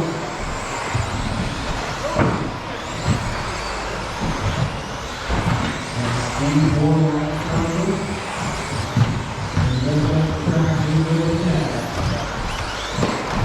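Electric 1/10-scale RC buggies with 17.5-turn brushless motors running around the track: a steady rush of motor and tyre noise with a couple of sharp clacks, about two seconds in and near the end.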